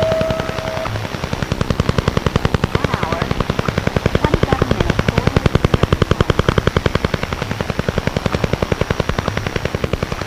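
The Soviet Duga over-the-horizon radar, the 'Russian Woodpecker', received on a shortwave radio: a rapid, steady train of sharp clicks, about ten a second, over band hiss. A steady whistle tone cuts off about a second in.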